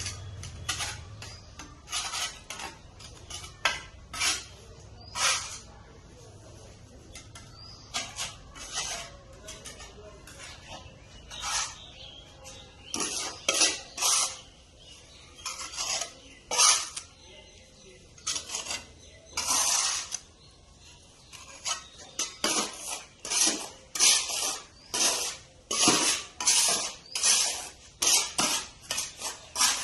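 A metal tool scraping against a hard surface in repeated short, irregular strokes, sparse at first and coming more quickly from about halfway through.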